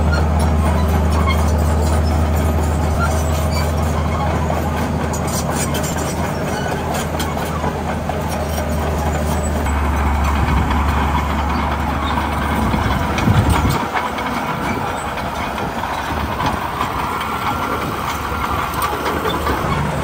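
Heavy diesel construction-machine engine running with a steady low drone. The sound shifts about ten seconds in and mostly falls away after about fourteen seconds, with a run of sharp clicks or knocks around the middle.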